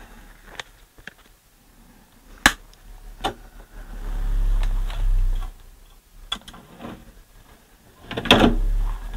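Bryston BCD-1 CD player's disc tray and mechanism being worked: a few sharp clicks and two spells of low motor hum, one a little past the middle and one near the end.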